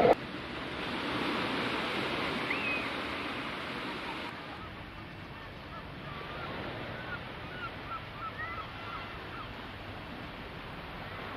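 Steady wash of sea surf on the shore, with a few short bird calls about two seconds in and a run of them later on.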